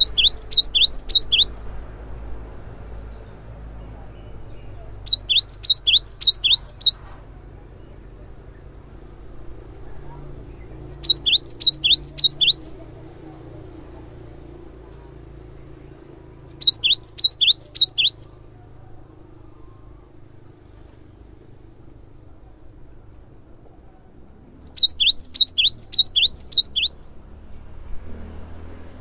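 Cinereous tit (gelatik batu) singing: five bouts of about two seconds each, every bout a rapid run of sharp, high, downslurred notes, with pauses of three to eight seconds between bouts.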